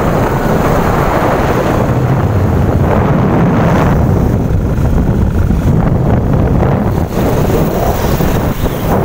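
Heavy wind buffeting the microphone on a moving motorcycle, with the motorcycle's engine running underneath.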